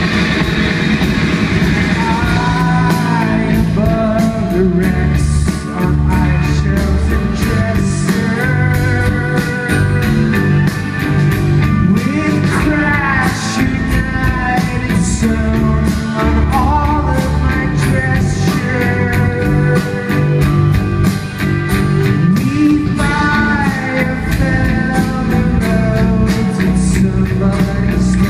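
Live rock band playing: electric guitars and drums keeping a steady cymbal beat, with a man singing the lead.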